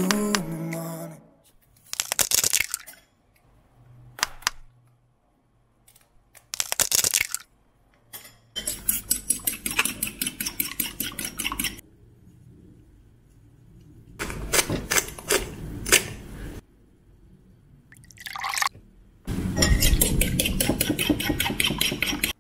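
Eggs tapped and cracked open over a ceramic bowl, then a metal fork whisking them, scraping and clinking rapidly against the bowl. A pepper grinder is turned over the bowl, milk is poured in, and the whisking starts again near the end.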